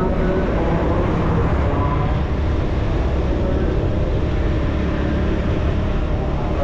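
Steady rumble of a vehicle driving along a paved road, with continuous road and wind noise on the microphone.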